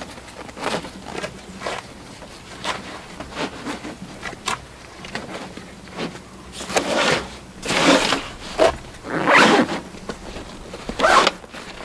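Zipper on the airbag compartment of a Klim Atlas 26L avalanche airbag backpack being pulled shut in a series of short strokes, fainter at first, then longer and louder pulls from about halfway through.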